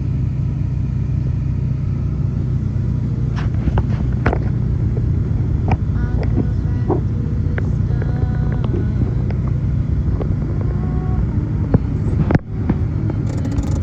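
A car driving: a steady low rumble of engine and road noise, with a few faint short sounds over it and a brief sudden drop about three-quarters of the way through.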